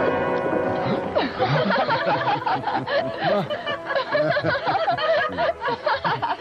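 A group of people laughing heartily, after about a second of background music that ends in a falling slide.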